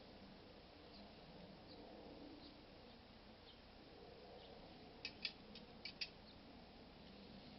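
Quiet background with faint scattered high chirps. About five seconds in, a quick run of five or six sharp clicks as a tobacco pipe is set into a homemade metal pipe holder with an ashtray.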